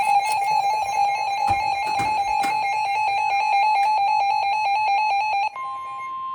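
NOAA weather radio alert alarm: a loud, rapidly pulsing electronic tone that about five and a half seconds in switches to a single steady tone, the alert that comes before a new warning is read.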